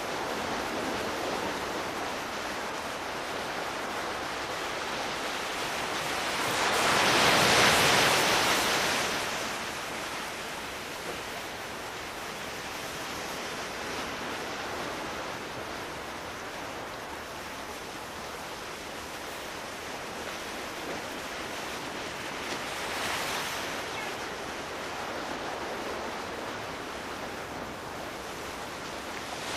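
Sea waves washing on a shore: a steady surf hiss, with one louder wave swelling and falling away about seven to nine seconds in and a smaller one around twenty-three seconds.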